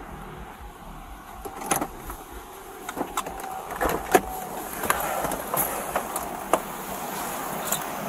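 Clicks, knocks and rustling as someone shifts in a patrol car's driver seat and opens the driver's door to climb out. A steady background hum grows louder about five seconds in.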